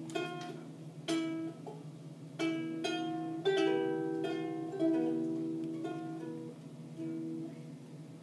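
Small toy guitar strummed by a toddler: irregular single plucks about once a second, each note ringing briefly and fading.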